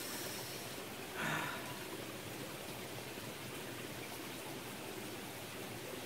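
Mountain stream flowing in a steady, even rush, with one brief soft noise about a second in.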